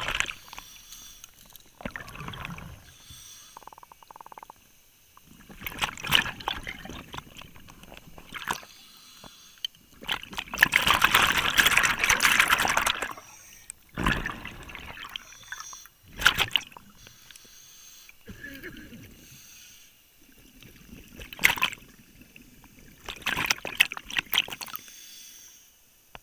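A diver's exhaled air bubbling out underwater in bursts every few seconds, one breath after another, the longest burst lasting about three seconds near the middle.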